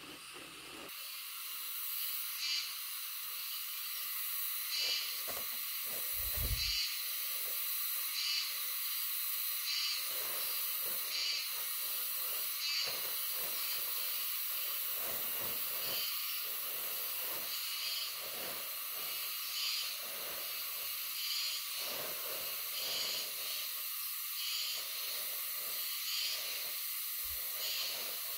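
A steady high insect chorus from the surrounding forest, swelling in pulses about once a second. A brief low thump comes about six seconds in.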